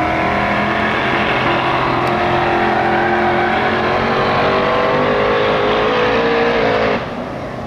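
Race car engine running loudly, its pitch slowly rising as the car pulls forward, with the sound cutting off abruptly about seven seconds in.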